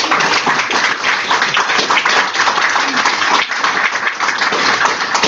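Audience applauding, many hands clapping together.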